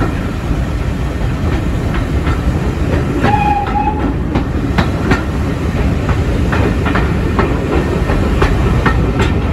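Train running along the track: a steady low rumble with irregular knocks of the wheels over the rails, and a short high squeal about three seconds in.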